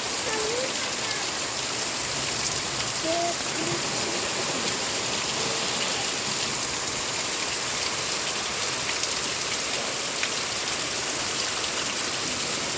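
Heavy rain pouring down: a steady, dense hiss of rain falling on surfaces.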